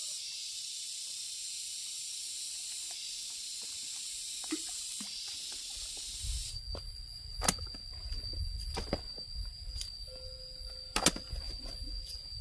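Outdoor ambience: a steady high-pitched hiss. About six seconds in it changes abruptly to a single steady high whine over a low rumble, with two sharp knocks.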